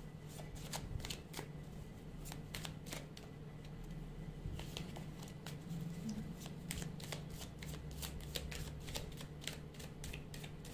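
A deck of tarot cards shuffled by hand: a run of crisp card snaps and flicks, coming faster from about halfway.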